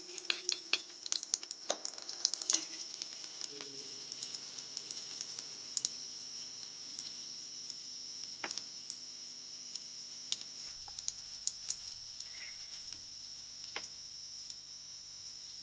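Kitchen preparation sounds: scattered light clicks and taps, thickest in the first few seconds, over a steady faint high hiss.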